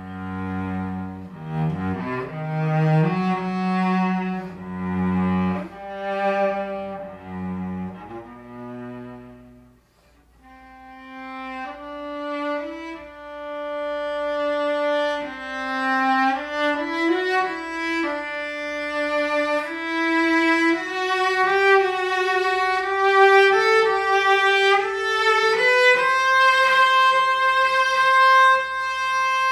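Solo cello playing a phrase of low notes, then a brief pause about ten seconds in. A bowed string instrument then plays a higher, slower melody of long held notes that climbs toward the end.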